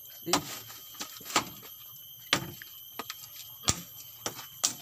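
Machete (bolo) chopping a bamboo pole held in the hand: about five sharp strikes, roughly a second apart, with a few lighter knocks between.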